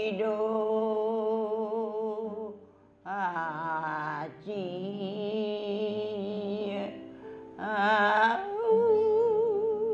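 An elderly woman singing a Hengchun folk song into a microphone, in three long phrases with a wide, wavering vibrato on the held notes.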